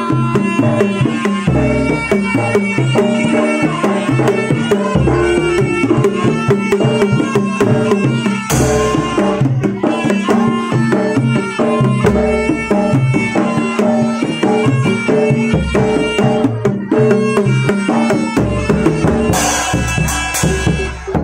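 Jaranan music from a Javanese ensemble: kendang hand drums driving a fast, even beat under layered metallic gamelan tones, with a bright hissing swell about eight seconds in and again near the end.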